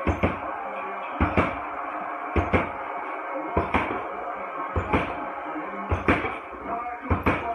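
Music with a steady, heavy beat, its paired thumps coming a little over once a second, mixed with boxing-gloved punches landing on a hanging heavy punching bag.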